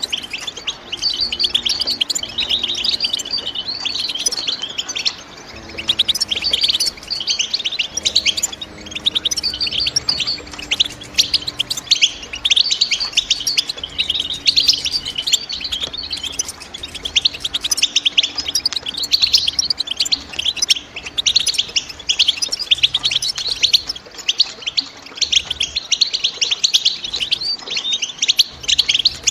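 European goldfinch singing: a fast, unbroken run of high twittering chirps and trills.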